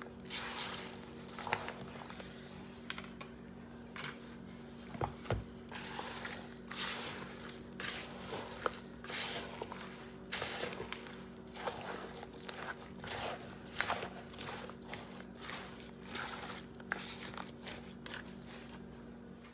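A spatula stirring a chunky fruit salad in cream in a plastic bowl: irregular wet squishing and scraping strokes. A steady low hum runs underneath.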